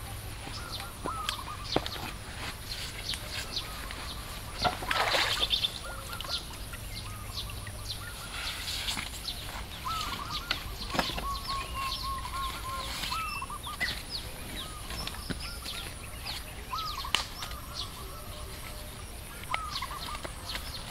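Wild birds chirping and calling: many short high chirps and repeated hooked calls, with a run of calls about ten to thirteen seconds in. A louder scuffing noise about five seconds in, and a smaller one near nine seconds, come from a person stepping across a log onto a bamboo platform.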